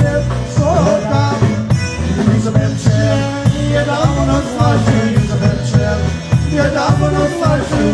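Live polka band playing a polka, with a bouncing bass line and drum kit beat under the melody instruments.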